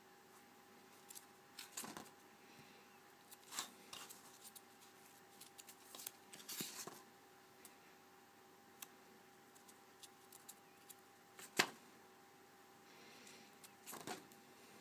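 Pages of a spiral-bound sketch pad being handled and turned: scattered faint paper rustles and clicks, the sharpest about three-quarters of the way through, over a faint steady hum.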